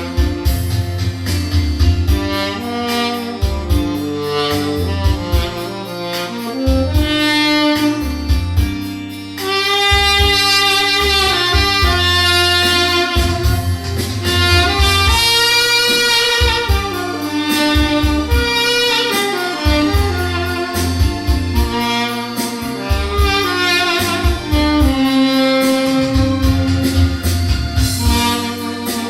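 Tenor saxophone with a stainless-steel mouthpiece playing a slow melody, dry with no added effects, over an accompaniment with a pulsing bass line. The sax breaks off briefly about nine seconds in, then comes back louder and higher.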